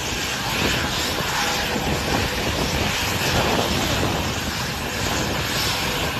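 Jet aircraft engines running: a steady, even noise with no change in level.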